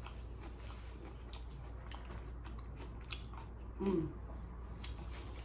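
Close-miked chewing of soft seafood in sauce, with many small wet mouth clicks and smacks. A short "mm" falling in pitch about four seconds in.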